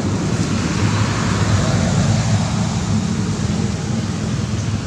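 Steady low rumble with a hiss over it, swelling slightly around the middle, like wind or traffic noise outdoors.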